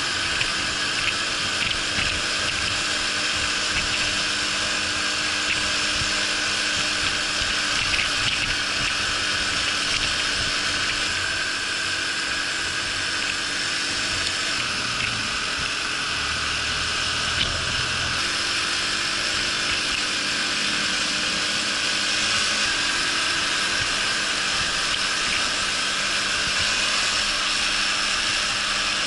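Honda Super Cub 50 moped's single-cylinder four-stroke engine running under way, heard from an onboard camera, its low note stepping to a new pitch a few times, under a steady rush of wind and road hiss.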